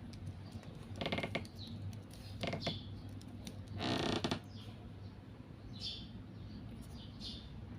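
A few short creaks and rattles of something being handled, the loudest about four seconds in, over a low steady hum; no saw motor running.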